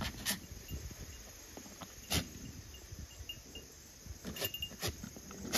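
Crickets chirping faintly in short, repeated notes, with a few sharp clicks or knocks scattered through, the loudest about two seconds in.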